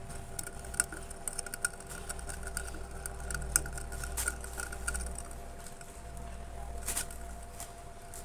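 Khind CF60 60-inch industrial ceiling fan running: a steady motor hum with scattered light clicks and ticks.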